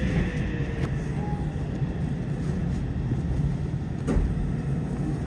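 Yokohama subway 3000R train car stopped or creeping at a platform, giving a steady low rumble. A light click comes about a second in and a heavier knock about four seconds in.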